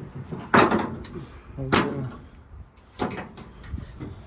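Three loud knocks about a second apart, each with a short ringing tail.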